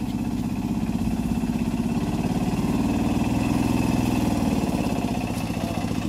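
Auto-rickshaw's small engine running under load as the three-wheeler is pushed through deep mud. Its fast, even putter swells a little louder around the middle.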